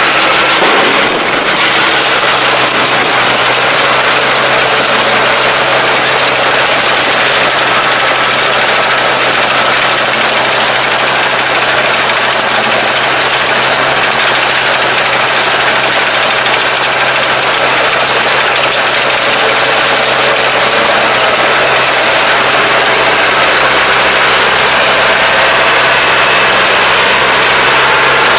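Tractor diesel engine running steadily under load, driving a round baler that is picking up and baling rice straw.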